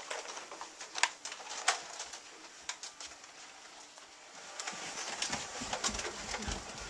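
Scattered sharp clicks and knocks, then from about four and a half seconds in a quicker run of low thuds.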